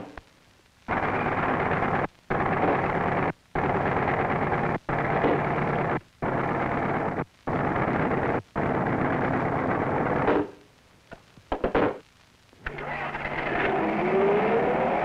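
Jackhammer breaking up pavement, a rapid hammering rattle in seven bursts of about a second each with short breaks. Near the end, after a few clicks, a rising whine comes in.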